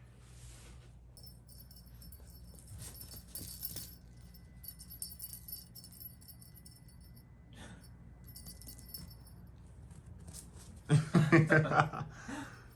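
Light metallic jingling in several short spells, followed near the end by a brief, loud voice.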